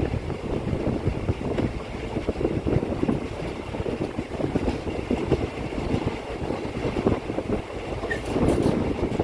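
Passenger train running on the rails, a steady rumbling noise heard from aboard the moving train.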